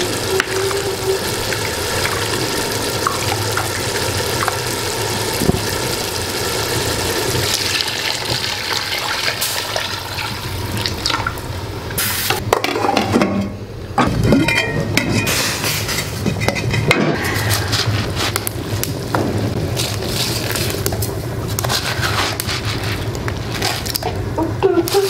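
Large aluminium pot of broth boiling hard on the stove, a steady bubbling and hissing, with broth splashing as it is ladled out and poured into a bowl.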